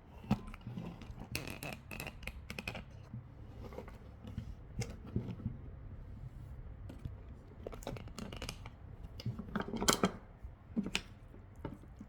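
Eating sounds: a spoon and fork clicking and scraping against a dish of stir-fried noodles in short, irregular bursts, with a few sharper clicks near the start and about ten seconds in.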